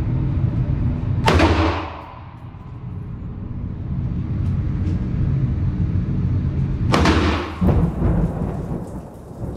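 A Ruger AR-556 MPR 5.56 mm rifle fires one shot about a second in, ringing off the walls of an indoor range, over a steady low rumble. Near the end comes a second loud crack with a long ringing tail.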